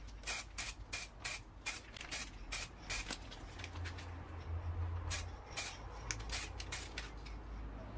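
Aerosol spray-paint can sprayed in many short, quick bursts, about three a second at first, then more spaced out after about three seconds.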